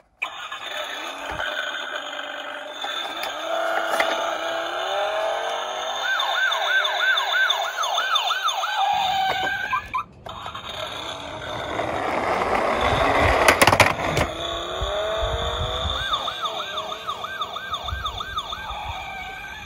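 Toy emergency-vehicle sirens sounding in layers. A fast electronic yelp of about three sweeps a second comes twice, once about a third of the way in and again near the end. Midway a rushing noise builds up and ends in a few sharp clacks.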